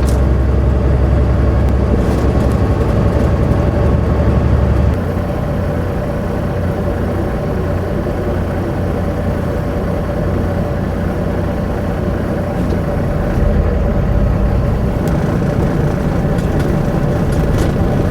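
Semi truck's diesel engine and road noise heard from inside the cab while cruising on the highway. The deep engine hum steps down noticeably about five seconds in and stays lower.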